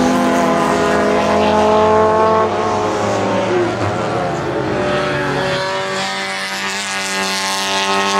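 Alfa Romeo and Fiat club racing cars running hard past the trackside. One car's engine note is steady and loud, then fades away after about two and a half seconds. Another car's engine then climbs steadily in pitch as it accelerates towards the end.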